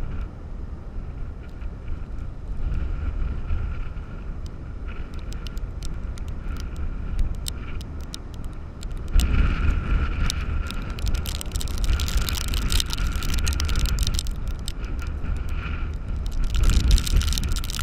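Storm-force gusty wind buffeting the phone's microphone over heavy surf, with rapid ticks of blowing sand striking the phone. The gusts grow stronger about halfway through and again near the end.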